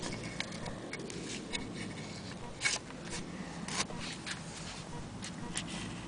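Handling noise: irregular light clicks and faint scrapes from hands and a handheld camera moving over the sewing machine, over a steady low background hum.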